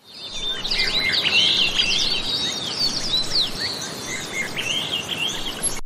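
Many small birds chirping and twittering at once, overlapping short calls. The sound fades in at the start and cuts off abruptly at the end.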